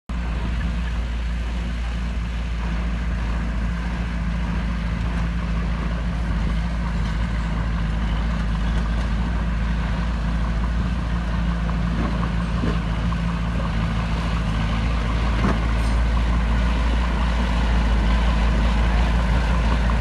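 Diesel engine of a small crawler bulldozer running steadily under load as it pushes soil, growing slightly louder toward the end. A few faint knocks come through about two-thirds of the way in.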